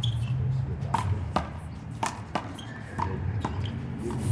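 A one-wall handball rally: a small rubber handball is slapped by hand and smacks off the wall and pavement, giving about seven sharp, irregularly spaced smacks.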